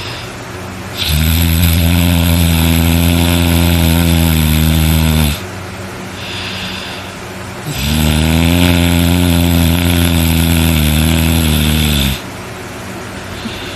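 A man snoring very loud and hard: two long, low snores of about four seconds each, starting about a second in and again near eight seconds, with quieter stretches between.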